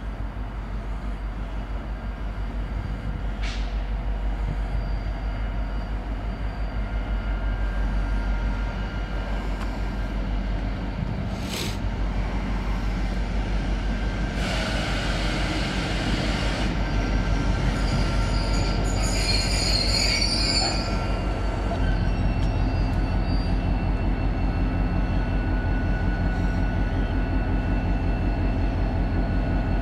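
M62 diesel locomotive's two-stroke V12 engine working hard as it starts a loaded coal train: a deep pulsing rumble that grows louder and more strongly pulsed after about twenty seconds. Midway through, high squealing from the train's wheels rises over it for several seconds.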